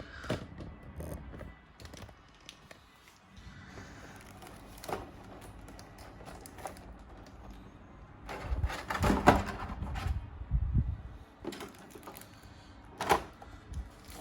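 Hands handling the figure's packaging and plastic parts: irregular clicks, taps and rustling, with a busier run of knocks about nine seconds in and a sharp click near the end.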